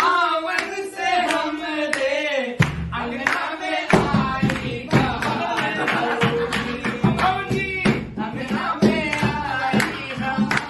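A group of men singing loudly together and clapping. About two and a half seconds in, music with a bass beat comes in under the voices.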